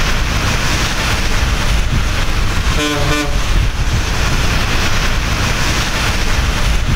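Heavy rain hissing down on a road with motor traffic running through it, and a vehicle horn giving a short double toot about three seconds in.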